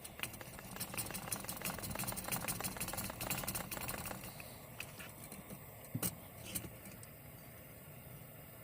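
Rapid, irregular clicking and rattling of metal parts of a vintage Coleman lantern being handled, for about four seconds, followed by a few single sharp clicks.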